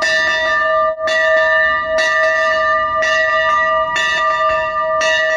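Steam locomotive bell rung about once a second, each stroke ringing on into the next.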